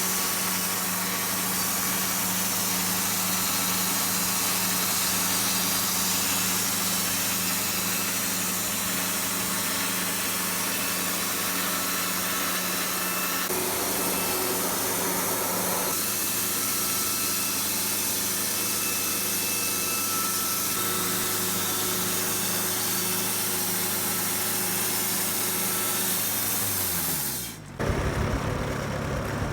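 Wood-Mizer LT40 portable band sawmill running steadily with its engine humming and the band blade sawing through a board. About two seconds before the end the engine note falls away and a rougher, uneven engine sound takes over.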